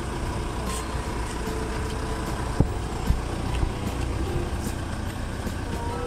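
Steady low rumble of a vehicle engine idling, with a single sharp knock about two and a half seconds in.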